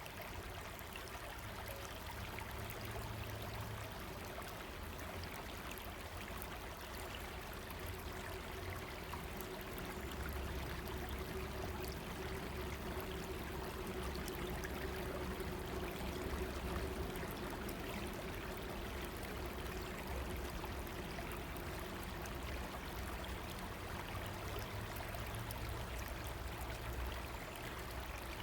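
A river running: a steady rush of flowing water that swells slightly in the middle.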